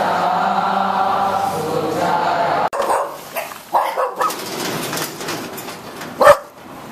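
Group chanting in a temple hall that cuts off abruptly about two and a half seconds in, followed by a dog barking several times in short separate barks, the loudest one near the end.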